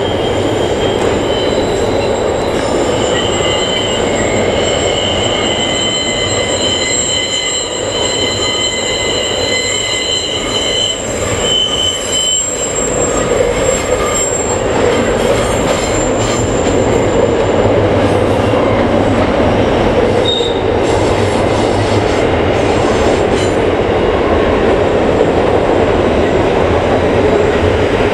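Container freight train rolling over a steel girder bridge: a steady rumble of wheels and wagons with high, steady wheel-squeal tones through the first half or so, which fade out after that while the rumble carries on.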